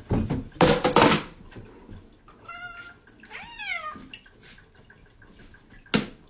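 Several domestic cats at feeding time: a loud rustling clatter in the first second, then two or three meows about two and a half to four seconds in, the later ones falling in pitch. A single sharp knock near the end.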